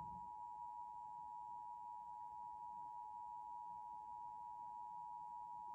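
Emergency Alert System attention signal: a steady two-tone alert (853 and 960 Hz together), held unbroken.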